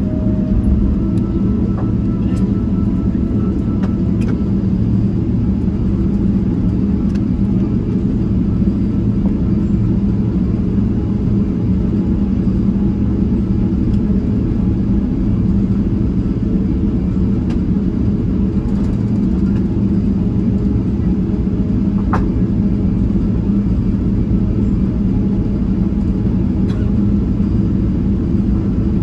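Steady low cabin rumble of a Boeing 777-300ER taxiing after landing, its GE90 engines at idle, heard from inside the passenger cabin, with a few faint clicks.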